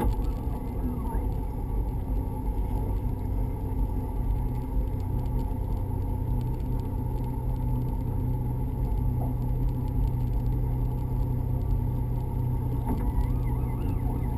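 Outboard motor of a pontoon boat running steadily at low, no-wake speed, heard as a constant low hum from the bow.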